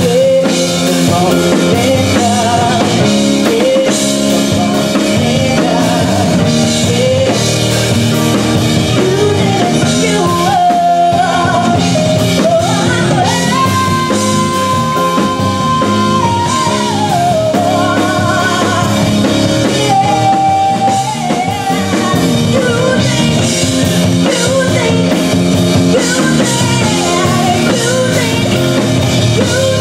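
A woman singing into a microphone with a live band, drum kit playing behind her. About halfway through she holds one long high note for about three seconds.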